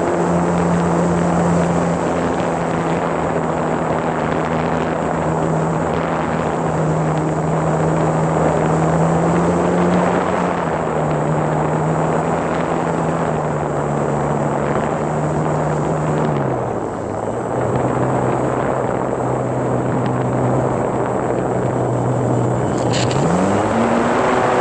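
Radio-controlled model plane's motor and propeller running, heard from a phone mounted on the plane, with wind rushing over it. The motor pitch drops in two steps as the throttle comes back, holds low, then rises again near the end, where there is a brief click.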